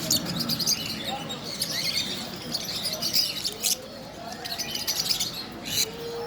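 Parrots chirping and calling in many quick, high chirps, with a couple of sharp clicks about four and six seconds in.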